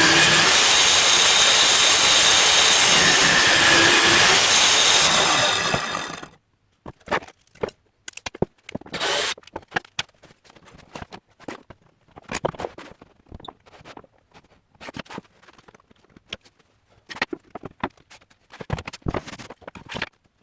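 A power tool running loud and steady with a rough, noisy whine, cut off about six seconds in. Then scattered knocks and clicks.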